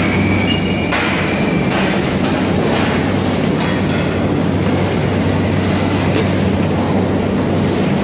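Shrimp tray-filling line running: steady machine noise from the modular plastic-belt conveyor and its motors, with a constant low hum. There are a few short knocks, and a thin high squeal during the first two seconds.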